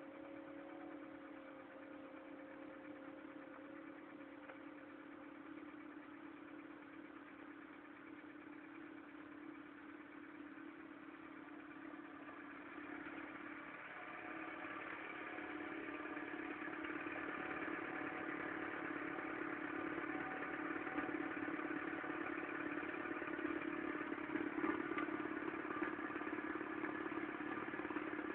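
A Mk3's 1.4-litre mono-injection petrol engine running with a clattery, tractor-like sound that the owner calls a bad engine sound. It gets louder about halfway through.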